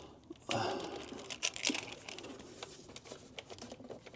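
Scattered light clicks and rustling of hands working an e-bike's removable battery and its key to take the battery out of the frame.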